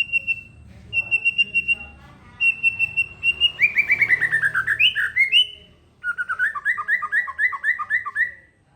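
A songbird singing in rapid trills: three short bursts of quick repeated high notes, then a long run of notes falling in pitch, then a fast trill of paired notes that stops shortly before the end.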